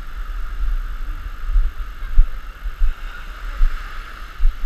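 Wind buffeting an action camera's microphone in uneven low gusts, over a steady background hiss, with one short click about two seconds in.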